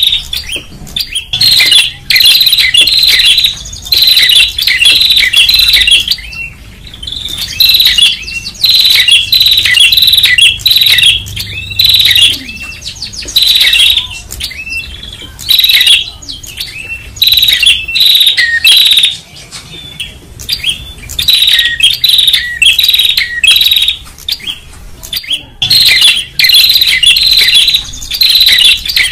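Tailorbirds (prenjak) calling loudly: rapid, repeated sharp chirps in dense runs of a few seconds, broken by short pauses.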